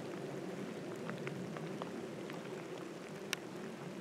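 Faint steady outdoor background noise with scattered light ticks and one sharper click a little over three seconds in.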